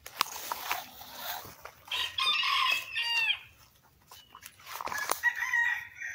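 A rooster crows about two seconds in, a drawn-out call that falls in pitch at the end. A chicken calls again near the end, over scattered rustles and crunches in dry leaf litter.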